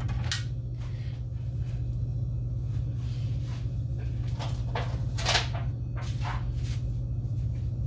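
A steady low hum with a few short knocks and clicks, the loudest a little past five seconds in.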